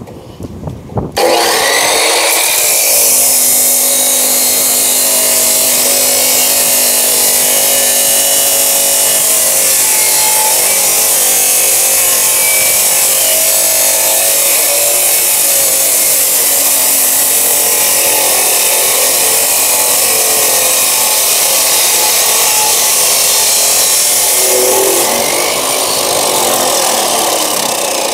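Hukan 2250 W abrasive cut-off saw starting about a second in, then its wheel grinding through a rectangular steel tube with a loud, steady grind and whine. The sound eases a little near the end as the cut finishes.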